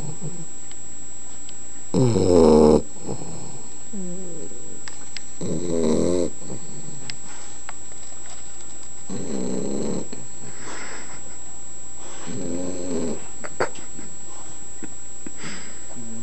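Eleven-week-old boxer puppy snoring in its sleep: four rough, rattling snores, one every three to four seconds, the loudest about two seconds in. A single sharp click comes about two-thirds of the way through.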